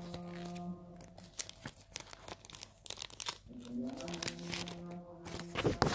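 Plastic and paper packaging crinkling and rustling in irregular crackles as banknotes are taken out of it by hand, loudest near the end, over a steady low hum.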